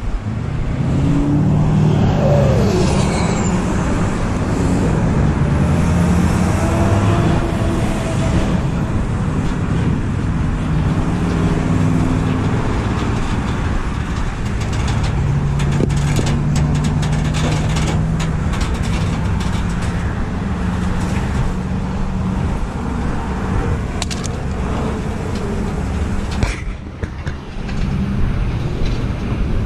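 Vehicle engines running steadily close by, with road traffic passing.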